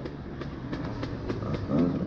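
Two-stroke dirt bike engine off the throttle at low revs, with a run of sharp knocks and clatter from the bike over rough ground; near the end the throttle opens and the engine note rises again.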